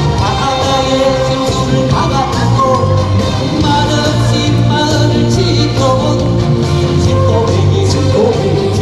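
A male singer performing a Korean trot song over a band backing track, holding long wavering notes above a steady bass line.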